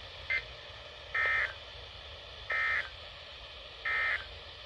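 Emergency Alert System end-of-message code from NOAA Weather Radio: three short bursts of SAME digital data tone, each about a third of a second long and about 1.3 seconds apart, marking the end of a warning broadcast.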